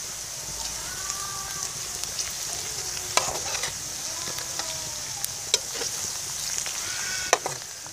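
Sliced onions and crushed coriander seed sizzling in oil in a frying pan, stirred with a spatula that scrapes and knocks against the pan a few times.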